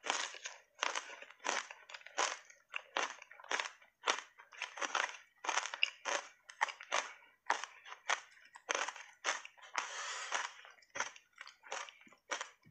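Hard ice chips coated in matcha powder being chewed close up: a steady run of sharp crunches, about two a second, with a longer grinding crunch a little after the middle.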